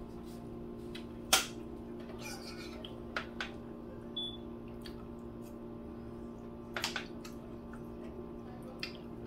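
Metal forks and spoons clicking against plates and foil food trays during a meal, a few scattered clicks with the sharpest about a second and a half in and a quick cluster of them near seven seconds, over a steady low hum.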